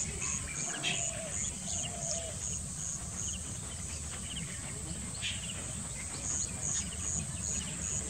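An insect chirps in an even high pulse, about three chirps a second, pausing for a few seconds midway, with a few short lower chirps and a steady low outdoor rumble underneath.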